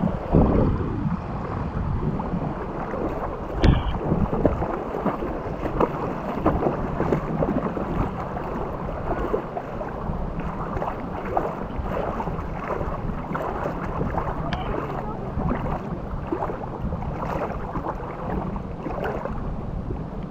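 Wind buffeting the microphone in gusts, with two sharp clicks, one about four seconds in and one near fifteen seconds.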